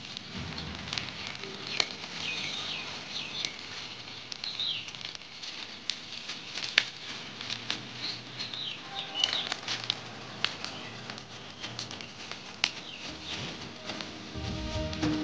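Green chickpea plants burning on an open fire, crackling with many sharp, irregular pops and snaps.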